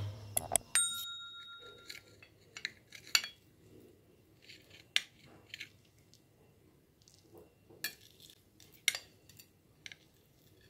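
Table knife cutting through a stuffed bell pepper on a ceramic plate: scattered clicks, taps and scrapes of the blade against the plate, with one short ringing clink about a second in.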